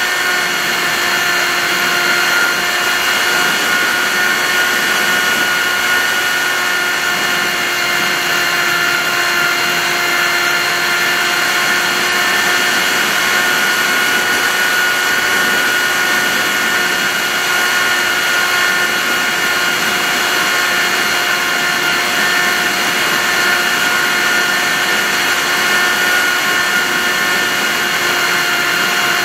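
Model aircraft's motor and propeller running at a steady high whine, heard on board the plane, over a constant rush of wind noise.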